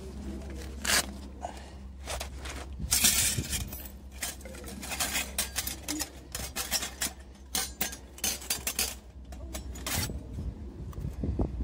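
Metal plates of a Bushcraft Essentials Bushbox LF folding stove clinking and scraping as it is unfolded and its panels slotted together by hand: a run of sharp, irregular metallic clicks and clinks.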